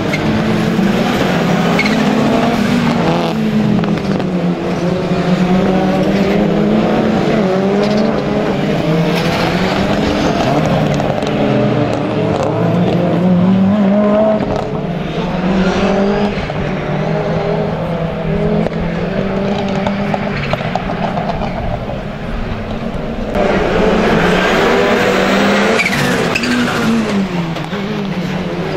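Rallycross Super Cars racing, their engines revving hard and falling back again and again through gear changes as the cars pass. The sound dips about three-quarters in, then comes back loud.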